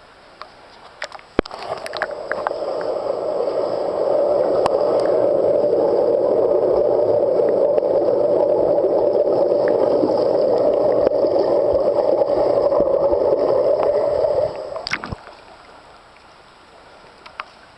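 Muffled water noise and bubbling heard with the camera under the water of a swimming pool as a swimmer strokes past. It builds about two seconds in, holds steady, and cuts off sharply about fifteen seconds in as the camera comes back out of the water.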